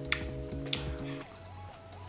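Background music, a held chord that gives way to a simple melody line, with two crisp crunches about two-thirds of a second apart from biting into a milk puff, a small crunchy cream-filled pastry.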